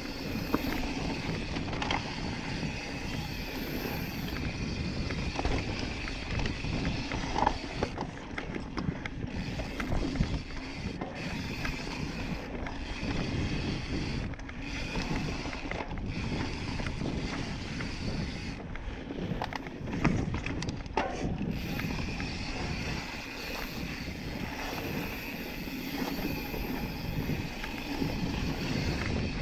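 Yeti SB5 full-suspension mountain bike ridden down dirt singletrack: wind rushing over the microphone and tyres rolling on dirt, with drivetrain and frame rattle and a few sharper knocks over bumps, loudest about 7 and 20 seconds in.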